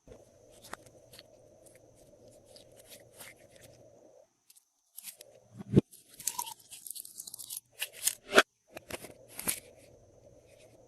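Glossy slime being mixed by hand: a run of small sticky clicks and crackles, with two loud snaps past the middle and a short hissy stretch between them. A low steady hum sits underneath.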